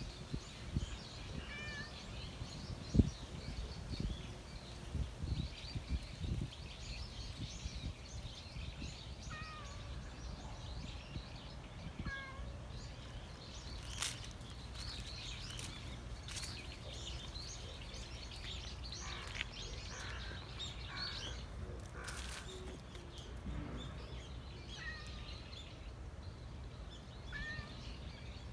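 Small birds chirping throughout, with a short animal call, a brief pitched cry, repeated about six times a few seconds apart. In the first six seconds there are a few low thumps, one of them sharp about three seconds in.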